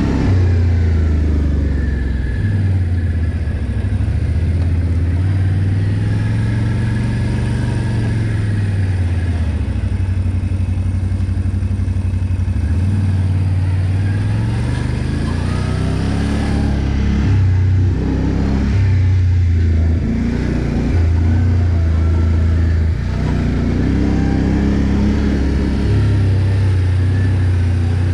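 ATV engine running under load, its pitch rising and falling again and again as the throttle is opened and eased, over a steady low drone.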